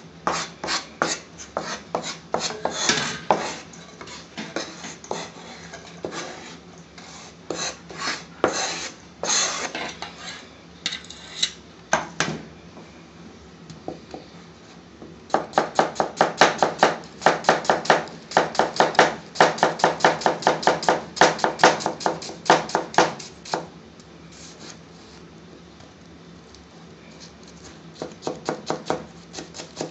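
Kitchen knife chopping onions on a plastic cutting board: irregular knocks at first, a pause, then a fast, even run of chops for about eight seconds. After a quieter spell the chopping starts again near the end.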